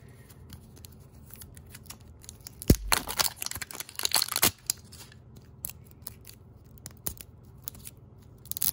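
Soo Mini LOL Surprise toy packaging being handled and torn open. A single knock comes just under a third of the way in, then a couple of seconds of crackly tearing and crinkling, trailing off into scattered light clicks.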